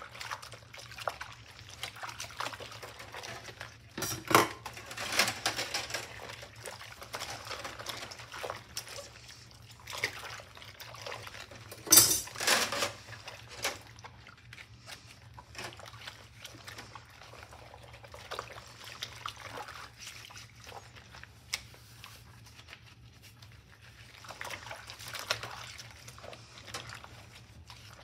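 Hand-washing a knife and metal kitchen tongs in a stainless-steel sink of soapy water with rubber gloves: water sloshing and dripping, a cloth scrubbing, suds and small knocks of metal. Two louder sudden sounds stand out, one about four seconds in and a stronger one about twelve seconds in.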